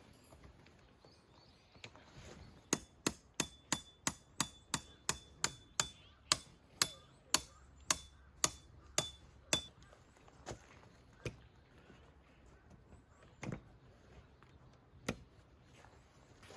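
A hammer driving tent pegs: a quick run of about twenty strikes, roughly three a second, each with a short ring, then a few slower single strikes.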